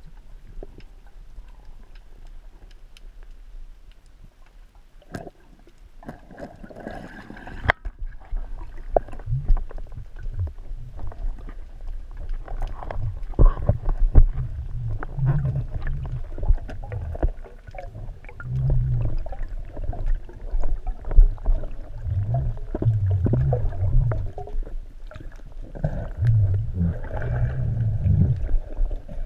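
Underwater sound through a camera's waterproof housing: low, uneven rumbling and surging of water as a spearfisher swims, with scattered sharp clicks. It grows louder after about eight seconds.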